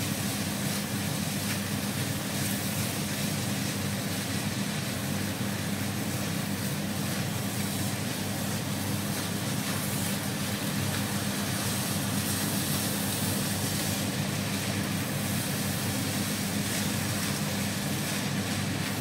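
Steady droning hum with a constant low tone, from the induction cooktop's cooling fan, under fried rice being stirred and turned with a spatula in a frying pan.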